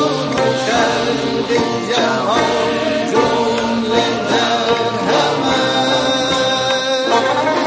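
Iranian devotional song: a male voice singing in long, gliding melodic lines over instrumental accompaniment.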